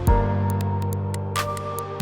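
Electronic music: held synth chords over a deep kick drum hit near the start, with short, crisp hi-hat ticks.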